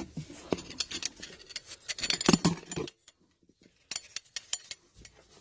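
Close-up handling noise: irregular rustling, scraping and light clicking and clinking, with a brief pause about three seconds in.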